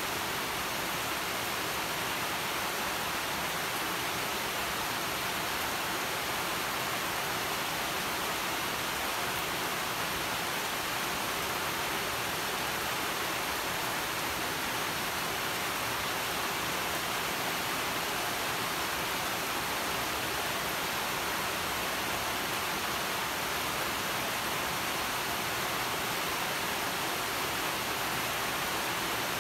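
Steady rain falling on vine leaves at night, an even, unbroken hiss that does not swell or ease.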